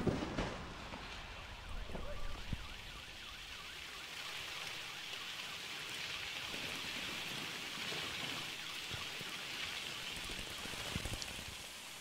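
Paint droplets falling like rain after the paint explosions, a steady patter with a few dull splats in the first couple of seconds, fading away near the end.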